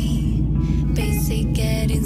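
Background music: a melody of short held notes that step up and down every few tenths of a second over a steady low accompaniment.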